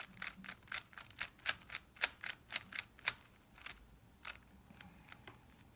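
Rubik's Cube layers being turned over and over, a quick run of plastic clicks about four or five a second. After about three seconds the clicks thin out to a few fainter ones as the cube comes out solved.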